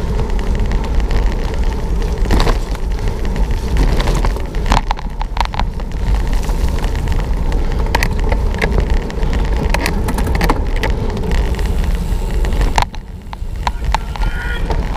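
Cyclocross bike ridden fast over a bumpy dirt trail: a steady rush of wind on the microphone and tyre rumble, broken by frequent sharp rattles and clicks as the bike jolts over the bumps. It drops quieter for a moment about thirteen seconds in.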